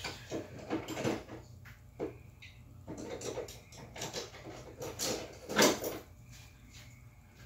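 Irregular knocks, clicks and rattles of tools and small parts being handled on a workbench, the loudest about five and a half seconds in, dying away near the end.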